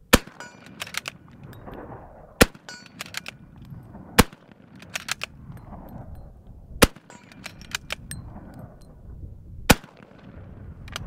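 Five rifle shots from a wooden-stocked rifle, spaced two to three seconds apart, each followed by a short clatter of smaller clicks.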